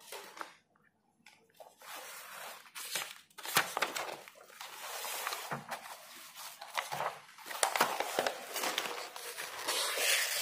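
Paper rustling and crinkling as notebook pages are turned and handled, with scattered sharp clicks and knocks.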